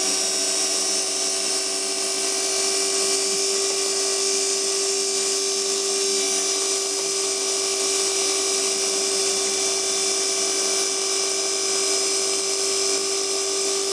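Small brushed motor running flat out with a steady high whine and a hiss from its sparking brushes. It is being run to destruction on a microwave-oven-transformer supply, its commutator mechanically damaged and overheating.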